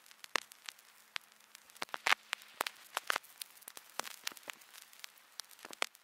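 Vinyl record surface noise: irregular crackles and pops over a faint hiss, with a faint steady hum underneath.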